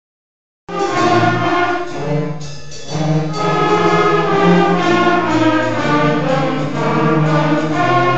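School concert band playing, brass and woodwinds sounding sustained chords together. The music starts under a second in, thins out briefly a little over two seconds in, then comes back in full.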